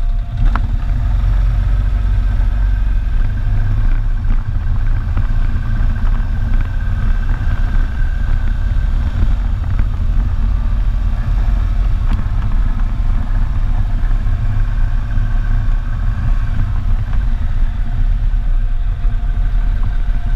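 ATV engine running at a steady riding pace along a dirt trail, with a heavy low rumble and no big revs.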